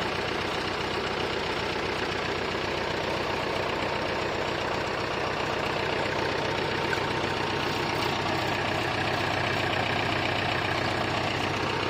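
Old engine idling steadily at an even pace.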